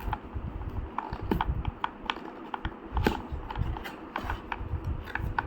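A cardboard camera box being opened and handled: scattered clicks, taps and scrapes of packaging at irregular intervals.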